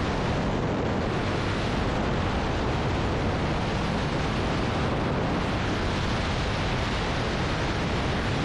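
Steady rush of wind on the microphone in skydiving freefall, an even noise that holds at one level throughout.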